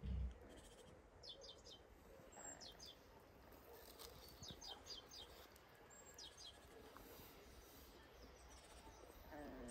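A small songbird singing faintly, the same short high phrase of a few quick descending notes repeated about every two seconds. A brief low thump comes right at the start.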